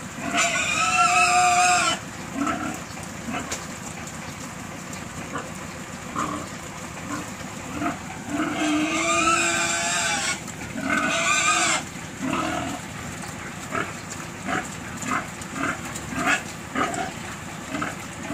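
Pigs crowded at a feed trough squealing loudly in three bouts: one about a second in, and two more around nine and eleven seconds. Short grunts run between the bouts.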